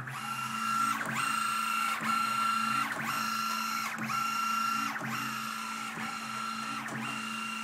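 Stepper motor and leadscrew driving the Y-axis table of a CNC-converted G0704 milling machine back and forth at about 331 inches per minute. A steady high whine dips and comes back with a click each time the table reverses, about once a second.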